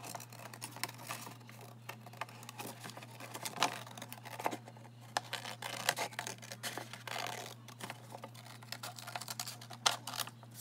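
Scissors snipping through painted paper in short, irregular cuts, over a faint, steady low hum.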